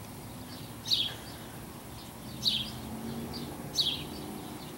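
A bird calling: a short, high chirp that drops in pitch, repeated three times about every second and a half.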